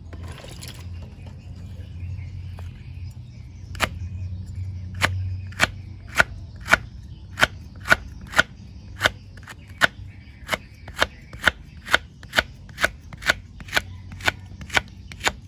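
Kitchen knife slicing a wilted pekaa (Oroxylum indicum) pod into strips on a wooden chopping board: sharp knocks of the blade on the wood, the first about four seconds in, then a steady two or so a second. A low steady hum runs underneath.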